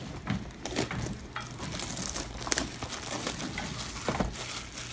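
Packaging crinkling and rustling in the hands as a Yu-Gi-Oh! mystery box is handled, in irregular crackles with a few sharper clicks.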